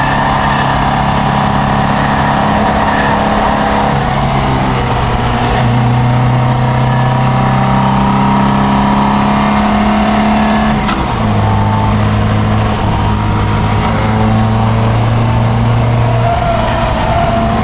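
Triumph Dolomite Sprint's 2.0-litre 16-valve slant-four engine pulling hard, heard from inside the cabin. The engine note holds steady for a few seconds at a time and then shifts to a new pitch several times, over road and wind noise. A brief click comes about 11 seconds in.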